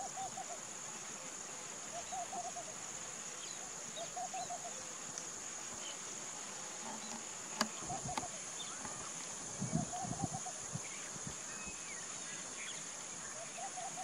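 Steady high-pitched insect chorus, with a bird in the background repeating a short phrase of quick rising-and-falling notes every two seconds or so. A single sharp click sounds about halfway through.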